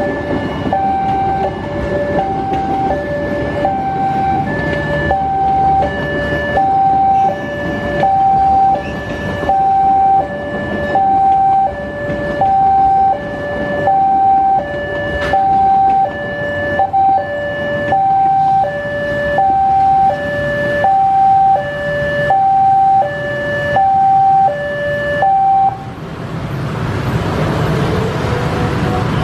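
Railway level-crossing warning alarm sounding a repeating high-low two-note tone, about one note every two-thirds of a second, over a low rumble. The alarm stops shortly before the end, and a louder rushing noise rises.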